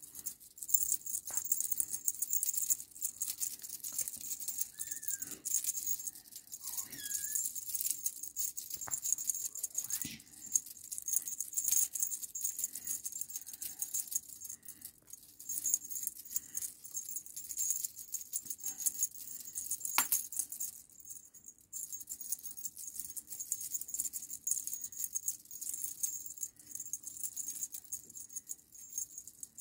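A feather wand cat toy being shaken and batted, rattling and crinkling in uneven bursts, with a brief lull about twenty-one seconds in.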